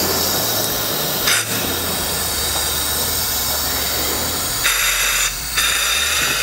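Pneumatic lift-assist tool for car tailgates: a steady hiss of air from its vacuum system, broken by short bursts of exhausting compressed air about a second in and twice near the end. This is the release sequence, the clamp cylinders opening and air blowing off the vacuum cups to free the part.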